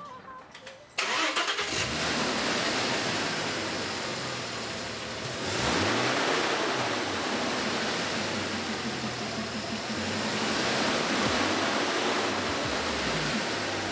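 Audi A4 B5 engine cranking and catching about a second in, then running, with a brief rev around halfway.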